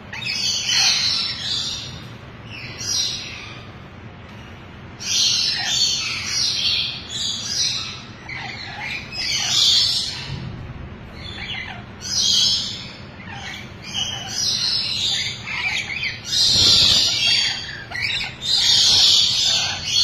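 Lory parrots (lorikeets) screeching and chattering in repeated harsh calls, bunched in clusters that grow denser and louder in the last few seconds.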